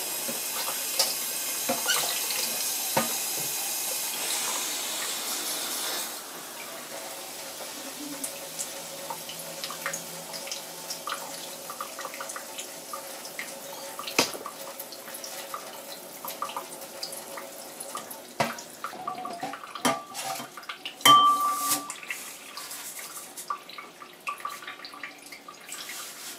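Tap water running and splashing into a stainless steel sink as filter cartridges full of filtration media are rinsed under it, with scattered clicks and knocks of the plastic housings. The water runs louder for the first six seconds, then drops to a quieter trickle, and there is a louder clatter about two-thirds of the way through.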